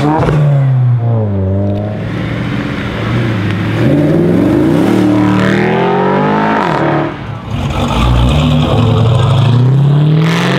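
Car engines revving and accelerating, their pitch rising and falling several times, with a short lull about seven seconds in.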